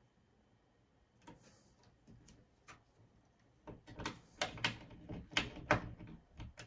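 Electrical tape being peeled from the roll and wrapped around thermostat wire ends, making scattered sharp crackles and clicks that grow denser and louder in the second half.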